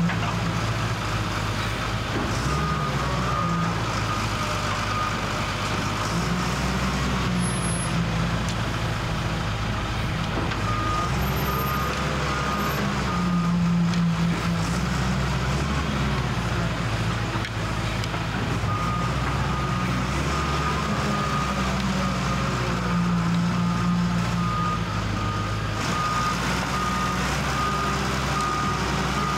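Diesel engine of a Lonking wheel loader running, its pitch rising and falling with the work, while a reversing alarm sounds regular short beeps in several stretches.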